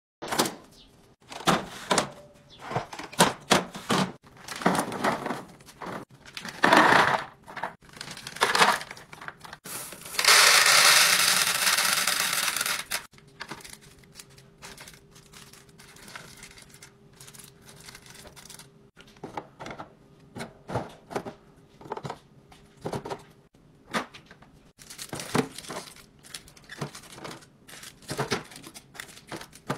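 Hands restocking a refrigerator drawer: wrapped snacks and cans clack and rattle into clear plastic bins, with plastic packaging crinkling. About ten seconds in there is a loud, dense rattling rush lasting about three seconds, after which the handling goes on more quietly.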